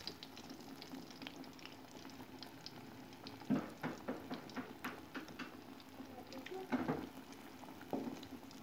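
Block of tofu deep-frying in hot oil in a metal wok: a quiet sizzle with scattered crackles. A metal spatula scrapes and knocks against the wok a few times, most around the middle and near the end.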